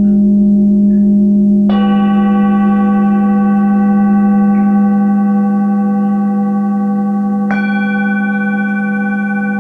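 A steady low ringing tone holds throughout while a Tibetan singing bowl is struck twice, about two seconds in and again near the end. Each strike rings out with many bright overtones that fade slowly.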